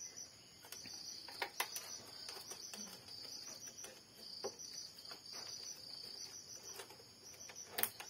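Light plastic clicks and taps as a flex cable is handled and seated along an inkjet printer's carriage, the sharpest click just before the end. Behind them runs steady, faint, high-pitched cricket chirping.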